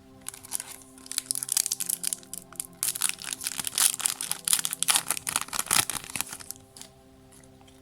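Foil wrapper of a Yu-Gi-Oh booster pack crinkling and crackling as it is handled and ripped open. The crackling starts just after the beginning and stops about a second before the end, over quiet background music.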